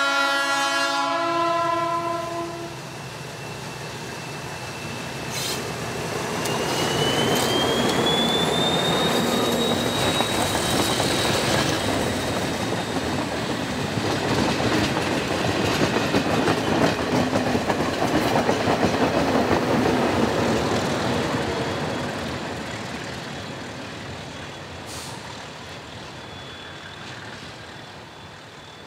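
Multi-tone horn of an ALCO DL537 diesel locomotive ending about two seconds in, then the train running past: engine and wheels on the rails building up, with a high squeal that rises in pitch, and fading away near the end.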